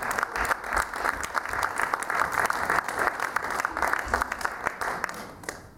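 Theater audience applauding, a dense patter of many hands clapping that dies away near the end.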